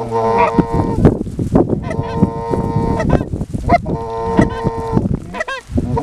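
Canada goose calling: long, steady honking notes about a second each, roughly every two seconds, with a quick run of short rising clucks near the end. Underneath is low, irregular thumping from strong wind on the microphone.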